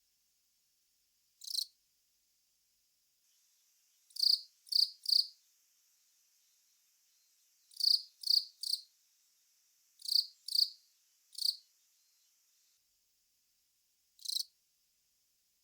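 Long-mouthed cricket (Velarifictous aspersus) calling: about eleven short, high-pitched chirps, some single and some in quick runs of two or three, with pauses of a second or more between.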